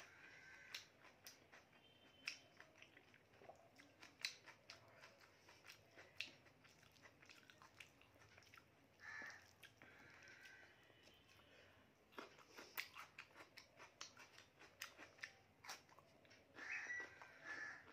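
Faint, close-up eating sounds of a person chewing a meal of rice and mutton curry: soft wet mouth clicks and smacks throughout, with a quicker run of them in the second half, and a couple of brief breathy mouth noises a little after halfway and near the end.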